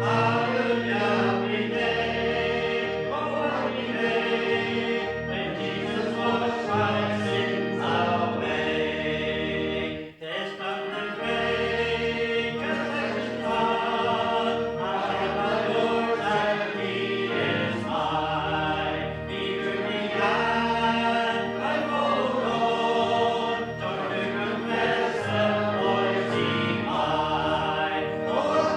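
Congregation singing a hymn together, in held, even phrases over a steady low accompaniment, with a short breath between lines about ten seconds in.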